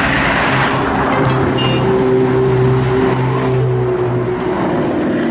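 A car's engine running with a steady note over street traffic noise, after a loud rush at the start, easing off near the end.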